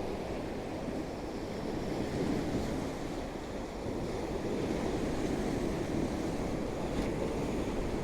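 Rough sea waves washing against sea-wall steps, a steady rushing surf that swells gently, with some wind on the microphone.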